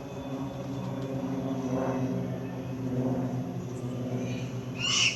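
Aircraft engine drone during a flypast, steady with slowly shifting pitch. A brief sharp high-pitched sound comes near the end.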